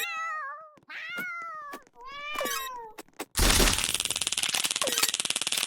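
A domestic cat meowing three times in a row, each a pitched, bending call under a second long. From about three and a half seconds in, a loud, harsh rasping noise takes over.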